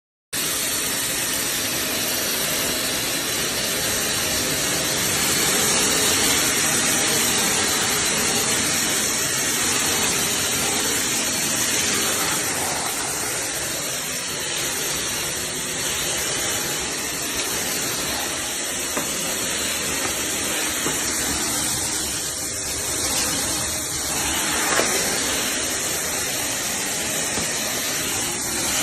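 Vacuum cleaner running steadily with a loud, airy hiss that is strongest in the high range.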